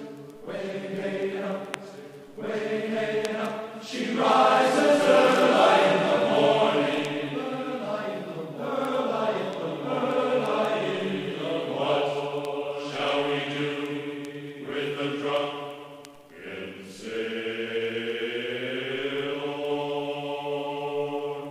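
Outro music of sustained chant-like choir voices holding chords, loudest about four to seven seconds in, with a short break near the end before the voices resume.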